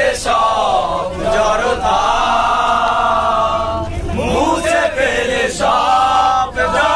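A group of young men singing a Bengali song together in a loud, rowdy chorus, holding long notes and breaking off for breath every second or two.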